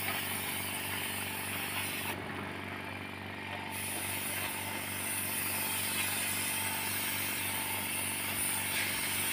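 Paint spray gun hissing as it sprays white enamel, over the steady hum of the air compressor feeding it. The hiss stops for about a second and a half around two seconds in, when the trigger is let go, then resumes.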